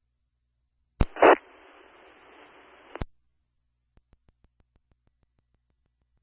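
Fire department scanner radio channel keyed up with no voice: a click and a short loud burst, about a second and a half of static hiss, then a click as the transmission drops. A few faint ticks follow.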